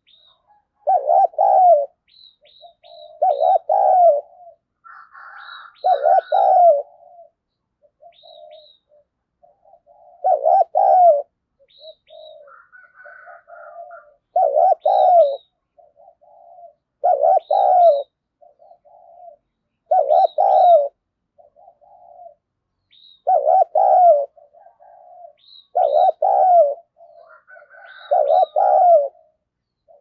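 Spotted dove (decoy cu gáy) calling over and over: a loud rolling coo phrase about every two to three seconds, with softer coos between. Thin, quick high chirps from another small bird fall in the gaps.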